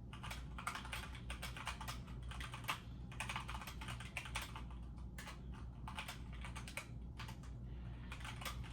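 Typing on a computer keyboard: quick runs of clicking keystrokes with brief pauses, over a steady low hum.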